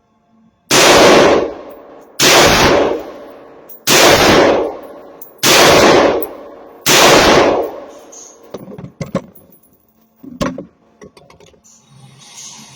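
Five shots from a 7.5-inch Del-Ton DTI-15 AR-15 pistol in 5.56, fired slowly about a second and a half apart, each a loud crack with a short ringing tail. A few lighter clicks follow.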